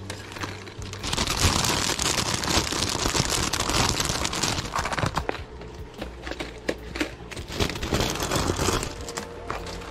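Plastic lure packaging crinkling and rustling as packs are handled, with scattered light clicks and taps. The crinkling is densest from about a second in to about five seconds in, and picks up again briefly near the end.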